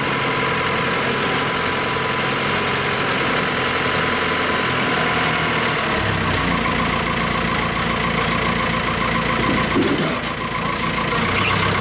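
Diesel engine of a Gradall 524 telehandler running as the machine maneuvers, its note turning deeper and heavier about six seconds in.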